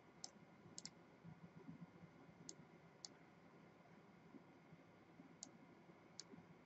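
Faint computer mouse clicks over near-silent room tone: about seven short, sharp clicks at irregular intervals, including one quick double-click about a second in.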